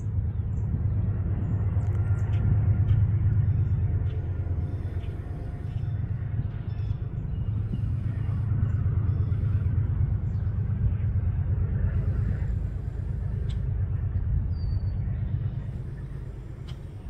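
Steady low outdoor rumble, with a few faint ticks and one short high chirp about three-quarters of the way through.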